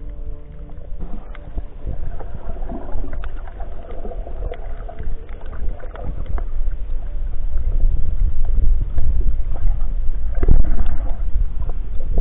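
Water noise picked up by an underwater action camera on a snorkeling swim over a reef: a muffled low rumble of moving water with scattered clicks and gurgling, getting louder toward the end. Background music fades out about a second in.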